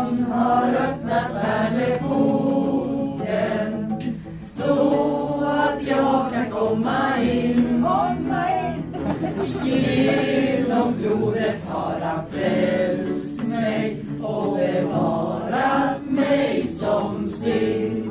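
A small mixed choir of men and women singing a song together.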